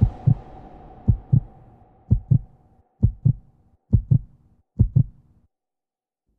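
Heartbeat sound effect: six deep double thumps, lub-dub, about one a second, stopping about five and a half seconds in. A faint steady tone fades out under the first few beats.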